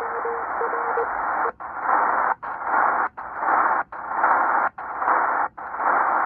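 Tecsun PL-330 shortwave receiver on single sideband giving out band hiss with a keyed Morse code tone, on-and-off beeps, for the first second and a half. The tone then stops, and the hiss breaks into even pulses with short dropouts about every 0.8 s.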